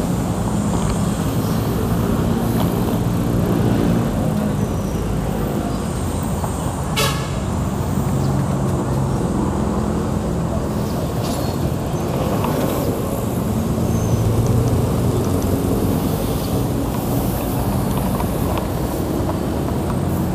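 Street traffic heard on the move: a steady rumble of road noise and nearby vehicle engines, with one brief high beep about seven seconds in.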